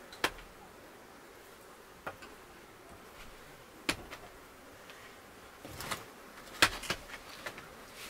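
Several sharp knocks and clicks at irregular intervals, the loudest a little past halfway, over a faint steady background.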